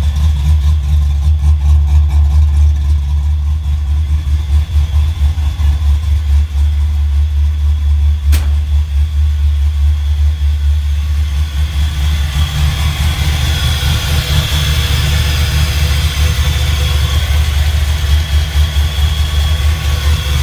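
1988 Mustang GT's 5.0 L small-block Ford V8, on a Holley Terminator fuel-injection kit with a Trick Flow cam, idling with a loud, uneven pulsing rumble. It is running before its dyno tune, and the owner says it is not yet right, timing included. A single sharp click comes a little before halfway, and in the second half a higher steady whine and hiss from the front of the engine join the rumble.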